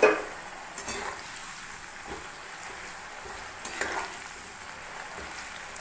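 Cornflour-coated potato fries sizzling steadily in hot oil in a wok during their first, partial fry. A spatula knocks and scrapes in the pan, sharply right at the start and more lightly about one second and four seconds in.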